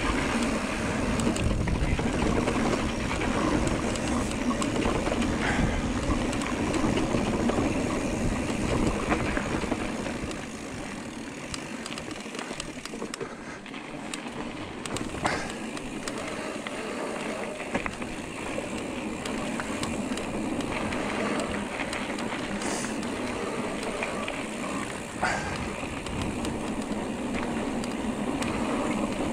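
Giant Trance E+3 electric mountain bike riding a trail: steady tyre noise with wind rumbling on the microphone, and a few sharp clicks and rattles from the bike. The wind rumble eases about a third of the way in and builds again later.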